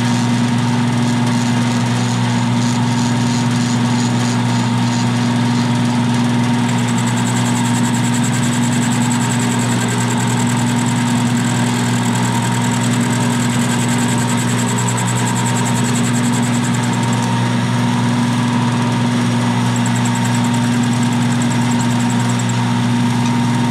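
Milling machine running steadily while its end mill takes a side cut along a steel part held in a vise, with a steady motor hum. A thin high whine from the cut comes in about a quarter of the way through, fades in the second half, and returns briefly near the end.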